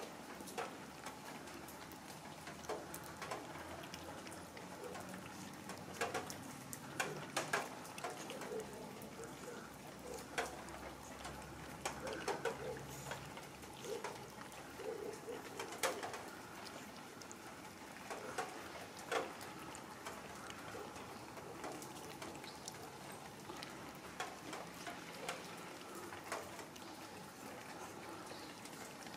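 Several cats eating wet food from plastic tubs: scattered clicks and smacks of chewing and of the tubs knocking on asphalt, with a few soft low calls in the middle.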